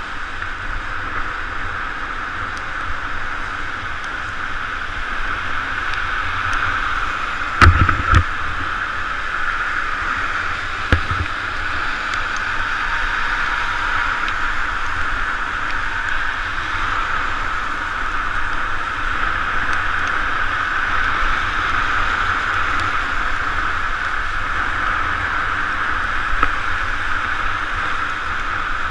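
Steady rush of wind and bicycle tyres on wet pavement while riding in the rain, picked up by a bike-mounted camera. A few sharp knocks stand out, two close together about eight seconds in and another about three seconds later.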